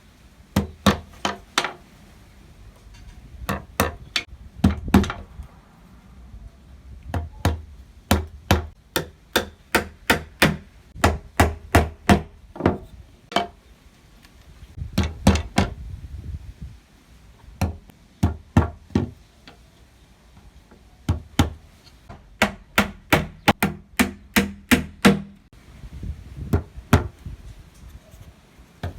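Hammer driving small nails into thin wooden slats: quick runs of three to six sharp strikes, a pause, then another run, repeated many times.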